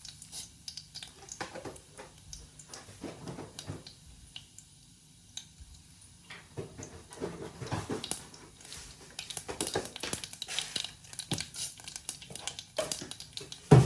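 Whole spices (mustard, cumin, fenugreek and fennel seeds) crackling and popping in hot oil as they temper. The pops are scattered and irregular, sparse at first and coming thicker in the second half. There is one sharp knock at the very end.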